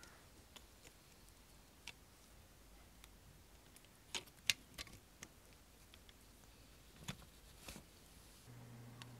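Sparse light clicks and taps of a diecast McLaren P1 model car's small plastic and metal parts being pressed together by hand, the sharpest pair about four seconds in and a few more near the end. A steady low hum begins near the end.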